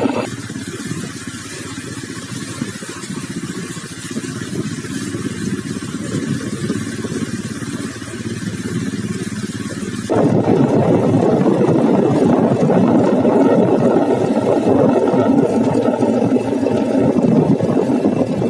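A motor vehicle running steadily, heard from on board, with a dense rumble and rushing noise. About ten seconds in the sound jumps abruptly louder and fuller.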